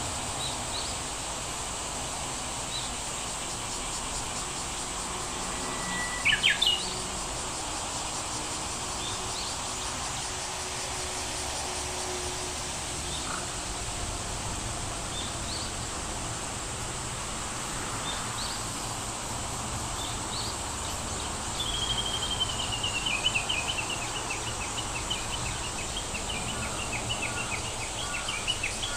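Steady rain patter with birds chirping now and then and a constant high insect buzz. A loud chirp comes about six seconds in, and a bird starts a fast, slightly falling series of chirps in the last third.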